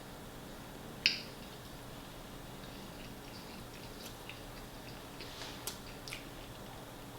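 Close-miked eating sounds: one sharp, loud wet mouth click about a second in, then a few softer smacking clicks while chewing a chicken wrap.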